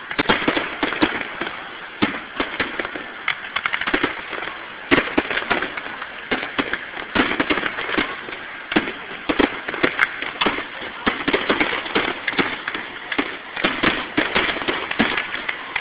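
Aerial fireworks bursting in quick succession: a dense, unbroken barrage of bangs, several a second.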